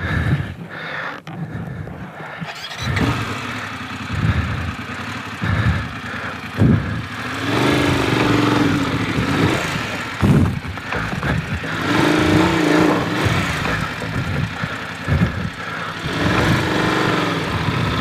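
Large adventure motorcycle climbing a steep, loose gravel and sand track, the engine revving up and down in surges with the throttle, with tyres crunching over stones. A couple of sharp knocks stand out about six and ten seconds in.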